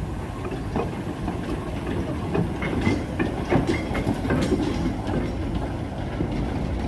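Two small steam saddle-tank locomotives hauling wagons slowly past: a steady low rumble of engines and wheels, with irregular clanks and knocks from the running gear and wagons.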